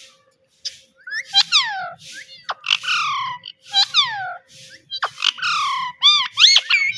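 Pet parrot calling over and over, about once a second, each call sliding steeply down in pitch. Near the end it breaks into a few quick rising-and-falling warbled notes.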